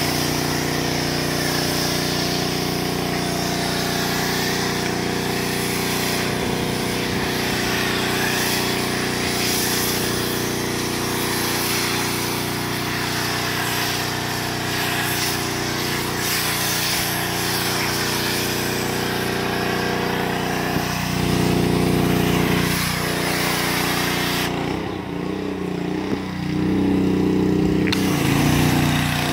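Small petrol engine of a pressure washer running steadily, with the hiss of water and foam spraying from a foam cannon. About 25 seconds in the spray stops for a few seconds and the engine note changes, then the spray starts again.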